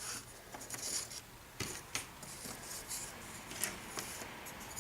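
Small balsa-wood pieces being handled on a workbench: scattered light taps and clicks with brief scratchy rubbing.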